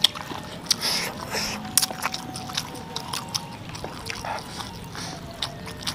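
Close-up eating sounds: a run of short mouth clicks and smacks with brief bursts of hiss, from chewing spicy tofu and rice.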